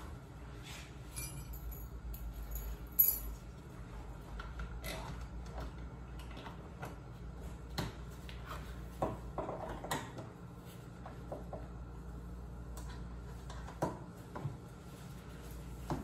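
Hand screwdriver working on a Kwikset door latch, metal on metal: scattered small clicks and taps, the sharpest about three seconds in.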